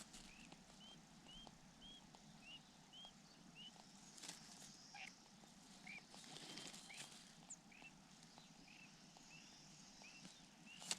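A bird giving faint, short chirps over and over, about two a second, with a couple of soft rustles in between.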